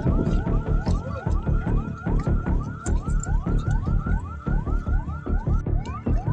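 Background music track: a fast, repeating rising synth figure, about four upward sweeps a second, that sounds like a yelping siren over a steady pulsing beat.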